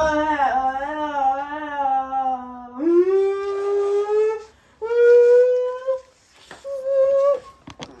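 Drawn-out howling voice in four long notes. The first wavers low, then the pitch steps up for the following notes, with short breaks between them.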